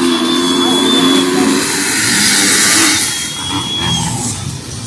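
A row of dirt bikes revving hard and pulling away together off the start line of a cross-country race, many engines running at once.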